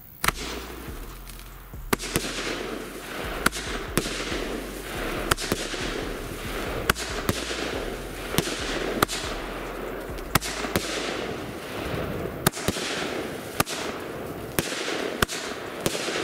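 Argento "Austria" consumer firework battery firing: a sharp bang about once a second as each shot bursts, with a continuous hiss between the shots.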